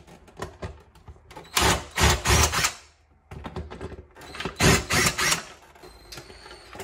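Cordless drill-driver run in two bursts, about a second and about two seconds long, backing out the screws that hold the old sprinkler controller to the wall.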